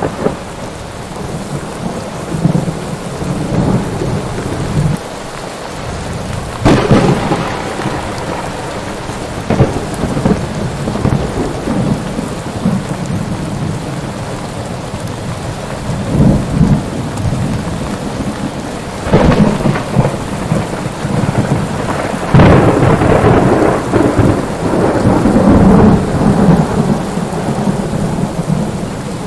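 Steady rain with thunder: a sharp thunderclap about a quarter of the way in, smaller rolls after it, another clap past the middle, then a long rolling rumble near the end.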